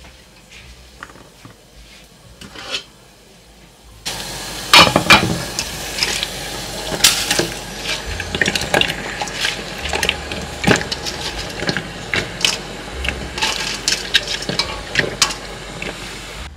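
Metal colander and steel pot clinking and knocking as cut vegetable stalks are tipped into a pot of steaming hot water, over a steady hiss from about four seconds in. The first few seconds hold only a few light clicks.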